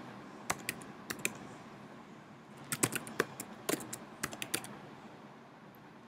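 Keystrokes on a computer keyboard: a few separate taps in the first second or so, then a quicker run of key presses around the middle.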